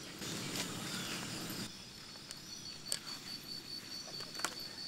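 Faint outdoor ambience with a few soft clicks; a little over two seconds in, an insect's high, steady pulsing trill starts.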